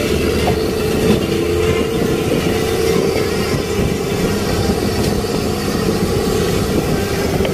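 Fishing vessel's engine running steadily, a constant drone with a steady hum.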